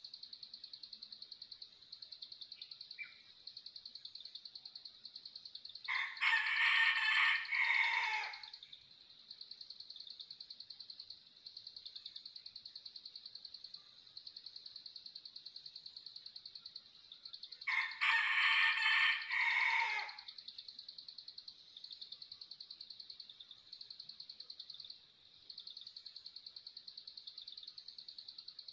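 Wild red junglefowl rooster crowing twice, each crow about two seconds long with a falling tail, over a steady high-pitched pulsing trill. The crow is small and thin in voice, which the hunter takes as a sign of an old bird.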